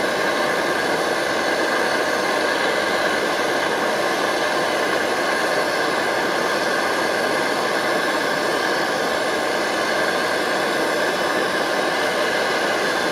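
MSR Dragonfly white-gas stove burning steadily at full output under a lidded pot, a loud even roar with a faint steady tone riding on it.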